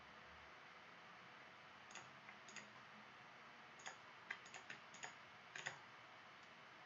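Scattered sharp clicks of a computer mouse and keyboard over faint hiss: two about two seconds in, then a quick run of about seven between four and six seconds.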